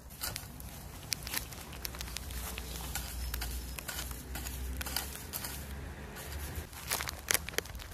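Rustling and snapping of tomato plant foliage as dried, yellowed lower leaves are plucked off by hand: a string of irregular sharp snaps and crackles over a low rumble.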